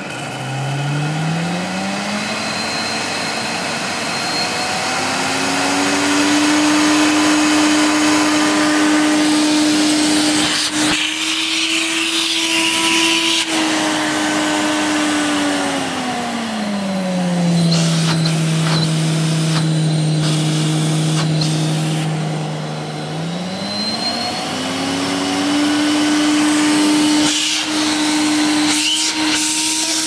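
Hoover Galaxy SC228 1400 W cylinder vacuum cleaner's motor running. Its whine rises as the speed control is turned up over the first few seconds, glides down to low speed about halfway through, then rises back to high speed. A few light knocks are heard as the dial and machine are handled.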